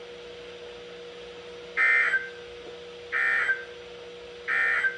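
Emergency Alert System end-of-message signal: three short bursts of SAME digital data tones, each about half a second and roughly a second and a half apart, marking the end of the alert. A steady low hum runs underneath.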